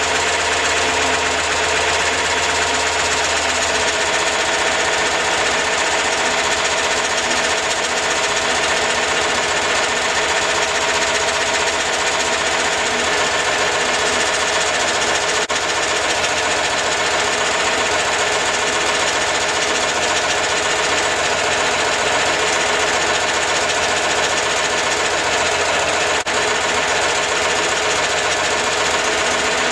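Citroen Ami 6's air-cooled flat-twin engine running steadily on its test run after an oil change and a new fan belt.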